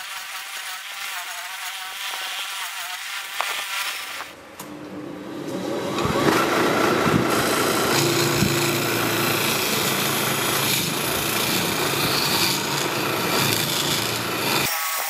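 Wood lathe spinning a jarrah and blue epoxy resin bowl while a hand-held turning tool cuts it, a steady scraping hiss. It dips briefly about four seconds in, then comes back louder and fuller.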